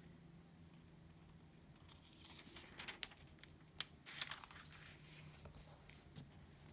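Thin Bible paper pages being turned by hand: a few soft, brief rustles and crinkles, clustered in the middle.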